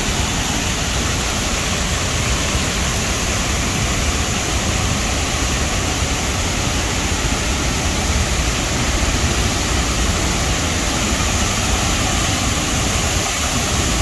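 Large waterfall rushing steadily, an even, unbroken noise heavy in the low end.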